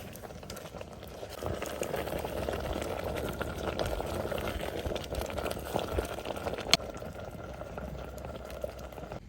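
A pot of food bubbling steadily at a boil, growing louder about a second and a half in, with one sharp click near the two-thirds mark.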